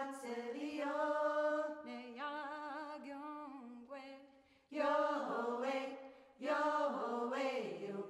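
Singing in long held notes, some of them wavering, in phrases that break off briefly about four and a half seconds in.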